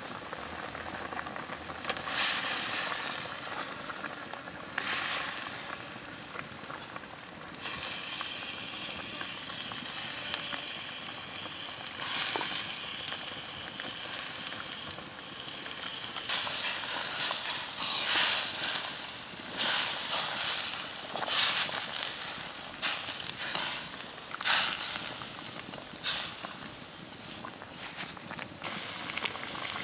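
Tom yum chicken soup boiling hard in a steel wok over a wood fire: a steady bubbling hiss with frequent louder surges.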